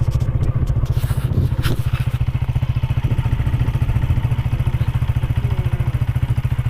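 Motorcycle engine running steadily while riding, a rapid, even pulsing beat.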